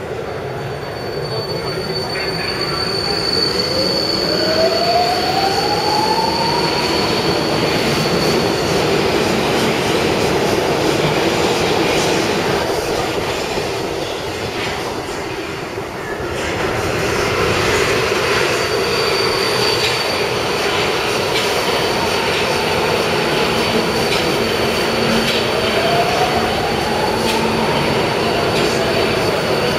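Alstom Metropolis electric metro train of the M4 line running into an underground station platform. A whine rises in pitch for a few seconds near the start and again near the end, over a steady rumble of wheels on rail. A thin, high wheel squeal runs through the first and last thirds.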